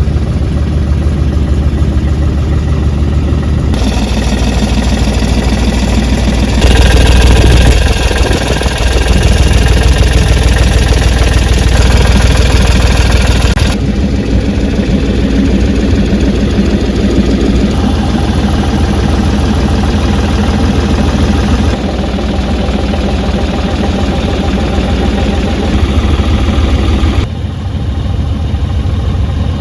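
Engine of a Ditch Witch trencher running steadily, louder and fuller for several seconds in the middle, with sudden changes in sound between spliced shots.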